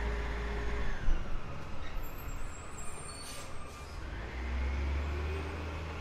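Garbage truck working a dumpster: a loud metal clunk about a second in, followed by smaller knocks. There is a short hiss of air a little past the middle, then the truck's engine hum comes back up steady.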